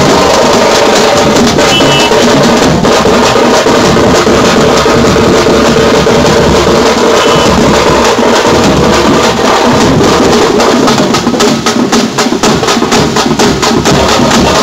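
A troupe of tamte (thappattai) frame drums and large stick-beaten drums playing a loud, fast street rhythm together. About eight seconds in, the strokes become crisper and more clearly separated.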